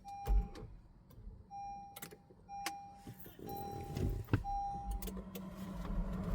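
A car's electronic warning chime beeps five times, each beep about half a second long, with sharp clicks among them, as the 2019 Honda Pilot fails to crank. A low steady hum starts about five seconds in.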